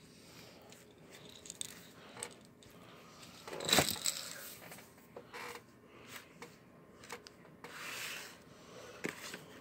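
Rubbing and scraping handling sounds with scattered light knocks, as plastic CD and DVD cases are moved on a desk. The loudest is a short clatter about four seconds in.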